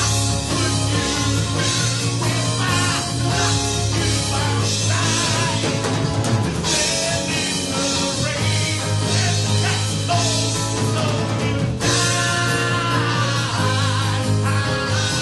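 Rock band music with drum kit and singing; the sung line stands out more strongly near the end.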